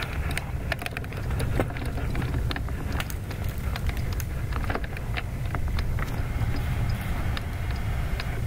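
Handling noise on the camera's microphone: scattered sharp clicks and ticks as the camera is held and panned, over a steady low rumble.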